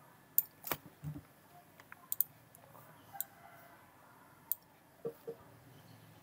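Computer mouse clicking: about half a dozen sharp, separate clicks at irregular intervals.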